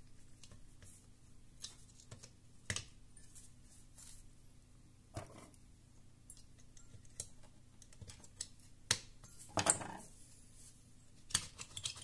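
Light clicks and taps of a graphics-card cooler being handled on a foam mat: the plastic fan shroud and finned heatsink being pressed and turned by hand. A few sharper knocks stand out, about 3, 5, 9, 10 and 11 seconds in.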